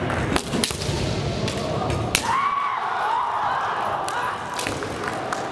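Kendo bamboo swords (shinai) striking with sharp cracks, three of them in the first two seconds, the loudest just after two seconds in. A drawn-out shout that rises and falls follows, a player's kiai.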